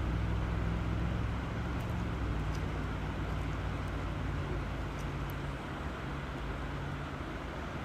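River water running in a steady rush, with a low steady hum underneath that shifts pitch about two seconds in.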